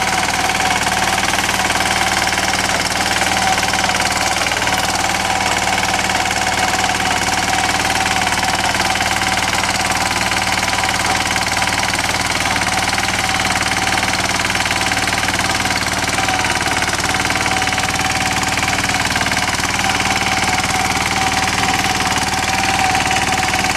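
Yağmur YET-510 walk-behind rotary tiller's engine running steadily while its tines work through garden soil.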